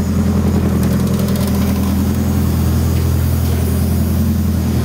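Turbocharged car engine idling steadily.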